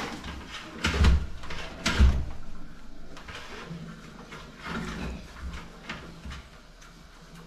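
Two loud knocks about a second apart, followed by lighter clicks and rustling of things being handled.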